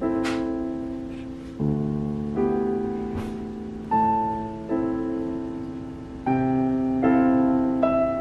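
Slow solo piano background music: chords struck about once a second, each ringing and fading before the next.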